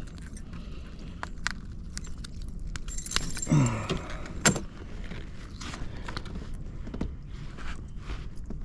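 Light metallic clinking and jangling of a spinnerbait's blades and hooks as a freshly caught bass is handled and unhooked, in scattered small clicks with a busier flurry about three seconds in.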